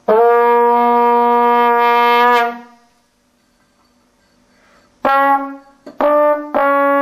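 Trombone playing a long held note for about two and a half seconds that bends slightly as it ends. After a pause, a few short notes lead into another long held note near the end.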